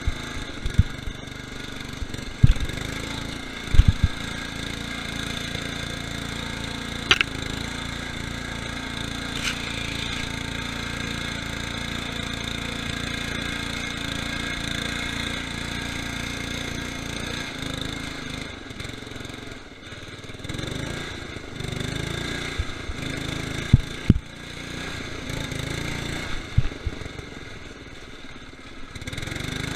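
Murray lawn tractor's 12.5 hp Briggs & Stratton engine running steadily, with several sharp knocks and thumps over it.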